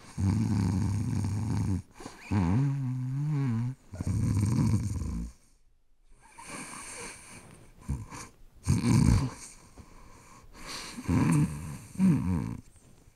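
An elderly man snoring in his sleep: three loud, long snores in the first five seconds, one with a wavering pitch, then quieter, shorter ones.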